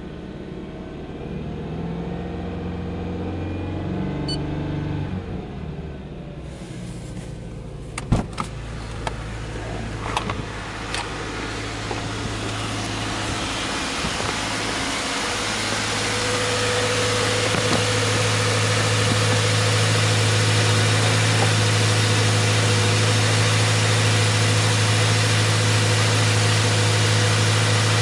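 Subaru Impreza G4 2.0i's 2.0-litre flat-four boxer engine at a fast idle near 2,000 rpm just after starting, heard first from inside the cabin and then, louder and steadier, from beside the open engine bay. A car door is opened, with a few sharp clicks and knocks about eight to eleven seconds in.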